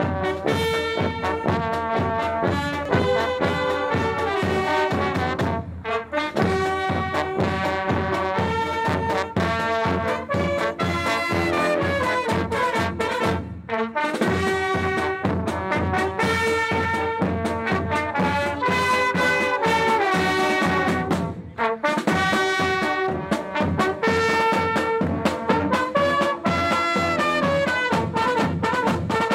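Brass marching band playing a march: trumpets, saxophones, trombones and tuba over a steady drum beat, with short breaks between phrases about 6, 14 and 22 seconds in.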